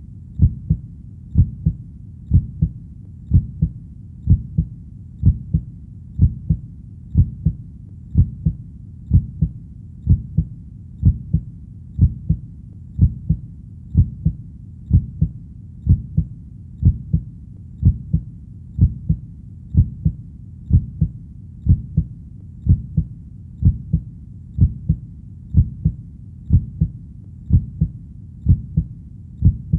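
Heartbeat, a steady lub-dub double thump about once a second, low and muffled, over a faint low hum between beats.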